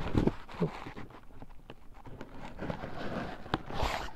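Plastic postal mailer rustling and crinkling as it is pulled open by hand, with scattered small clicks and a louder rustle near the end.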